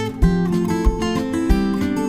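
Background music of acoustic guitar with a steady beat.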